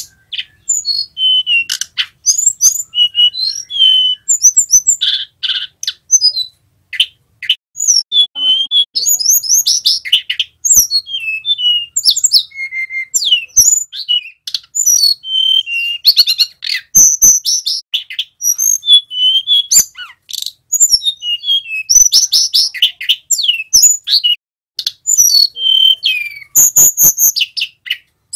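Male hill blue flycatcher (tledekan gunung) singing almost without pause: a rapid, varied run of high whistled phrases, trills and glides, with sharp clicks mixed in.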